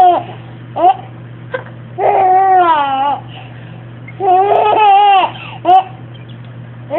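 A baby's voice: two drawn-out, high-pitched wailing cries of about a second each, with a few short, sharp vocal blips between them.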